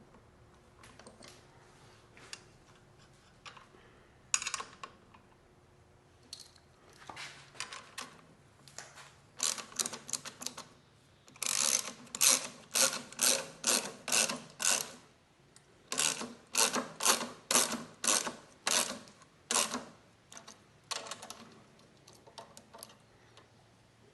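Ratchet wrench clicking as a bolt is tightened. A few scattered strokes come first. From about ten seconds in to about twenty seconds in, the strokes run steadily at about two a second, then a few more follow.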